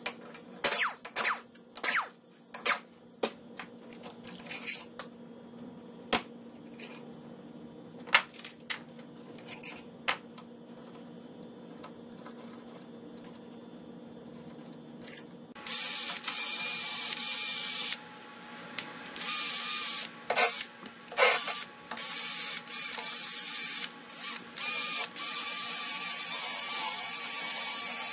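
Metal tools and parts clicking and knocking against an outboard lower unit. About halfway through, a loud hissing tool starts up and runs in spurts with short breaks.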